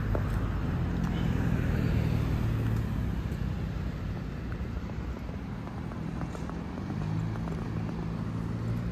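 A car driving past on the road, its low engine hum loudest in the first few seconds and easing off by the middle, over a steady background rumble.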